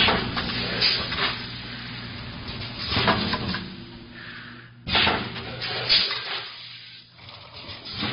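Automatic coffee-bean packaging machine running, its film rollers, valve applicator and bag former working through a cycle. A steady hum sits under sharp clacks and hissing bursts every second or two, growing fainter near the end.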